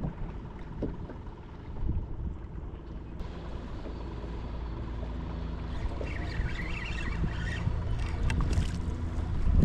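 Water sloshing around a kayak's hull with wind rumbling on the microphone, joined about three seconds in by a low steady hum.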